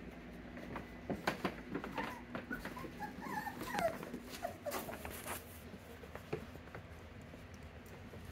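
Young mini Bernedoodle puppies whimpering with short high squeaks while they play, mixed with scattered taps and scuffles, busiest in the middle few seconds.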